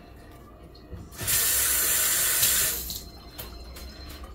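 Kitchen sink tap turned on about a second in, water running hard for about a second and a half, then shut off.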